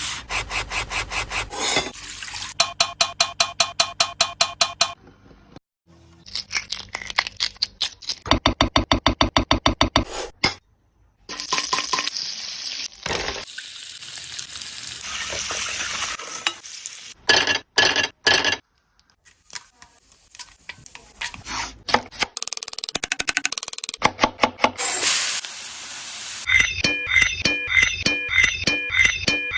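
Kitchen cooking sounds cut together in quick succession: runs of rapid repeated strokes, stretches of sizzling from frying, and short silent gaps between cuts. A repeating tune-like pattern comes in near the end.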